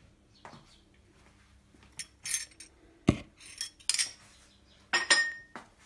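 Tableware being handled: a few sharp clinks of dishes and a spoon, a dull knock about three seconds in as a heavy glazed dish is set down on the table, and a clink that rings briefly near the end.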